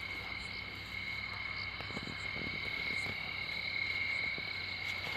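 Crickets trilling in one steady, unbroken high-pitched chorus, with a few faint rustles underneath.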